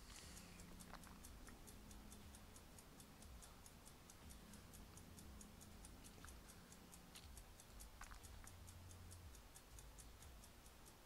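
Near silence: room tone with faint, steady, fast ticking, about five ticks a second, and a faint low hum.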